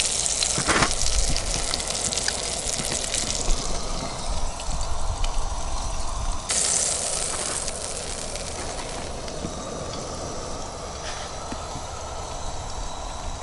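Whole channel catfish sizzling in olive oil in a frying pan over a propane camp stove: a steady hiss. About six and a half seconds in it cuts abruptly to a somewhat quieter, duller hiss.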